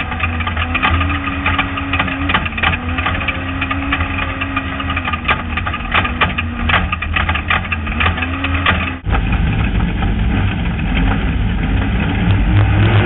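An off-road vehicle's engine running hard at a steady high speed, its pitch dipping and recovering a few times, over a constant clatter of gravel and rattles. About nine seconds in it changes abruptly to a lower, rumblier engine note.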